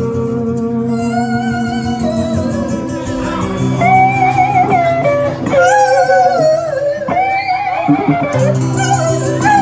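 Live trio music: guitar under long held low notes, with a wavering melody line on top.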